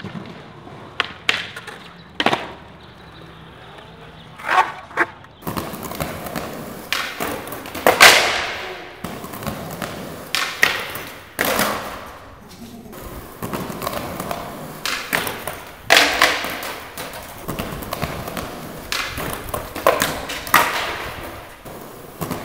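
Skateboard tricks on concrete: a series of sharp wooden pops and board slaps from landings, with stretches of wheels rolling between them.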